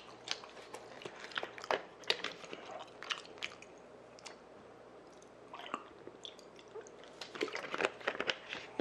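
Close-miked mouth sounds of chewing and swallowing, mixed with the crackle of a thin plastic water bottle being picked up, drunk from and handled: irregular small clicks and crinkles.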